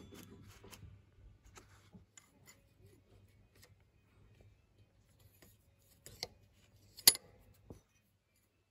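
Hands handling the metal parts of a riding mower's rear-axle drum brake: light rubbing and ticking, then a few sharp metallic clicks, the loudest just after seven seconds.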